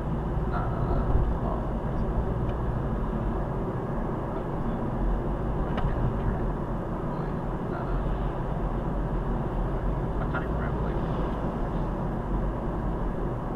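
Steady car road noise heard from inside the cabin while driving: a low, even rumble of tyres and engine, with a few faint ticks.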